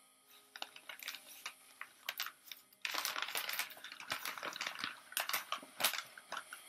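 Newspaper wrapping crinkling and rustling as it is pulled open by hand: scattered crackles at first, then a denser, louder stretch of crinkling from about three seconds in.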